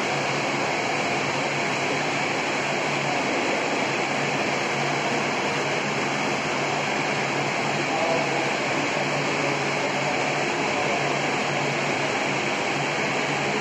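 Steady rushing ventilation noise of moving air, with a low hum underneath and no change throughout.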